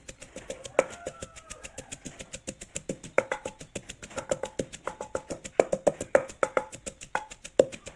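Pestle knocking in a mortar, a quick uneven run of hard strikes with a short ring, as the herb paste is pounded and mixed.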